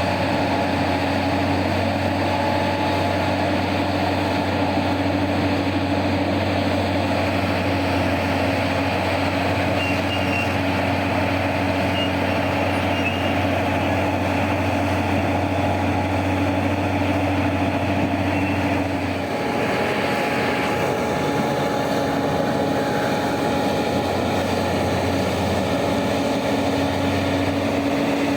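Heavy mining machinery's diesel engines running steadily, with a shift in the engine note about two-thirds of the way through.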